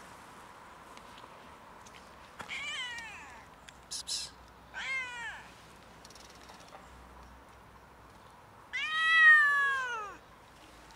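Tabby cat meowing three times, each call falling in pitch at its end; the last is the longest and loudest.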